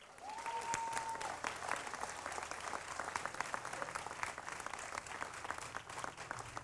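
Audience applauding: steady, dense clapping that eases a little toward the end, with one short held whistle-like tone in the first second or so.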